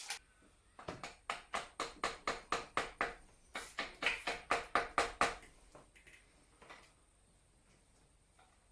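Plastic cable ties being ratcheted tight around rubber fuel lines, a run of about fifteen sharp clicks at roughly three a second that trails off after about five seconds into a few fainter ones.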